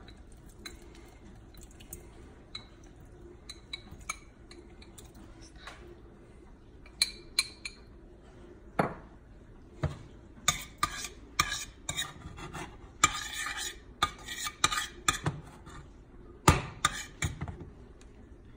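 A metal spoon stirring in a small stainless steel saucepan, with scattered light clinks. From about ten seconds in the clinking and scraping become denser and louder as salsa is spooned and scraped out of the pan onto a plate.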